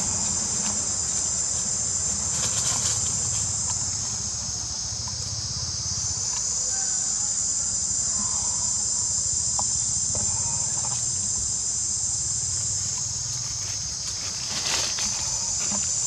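Dense chorus of insects, a steady high-pitched buzz that eases off briefly a few seconds in and again near the end, with a few short rustles of dry leaves.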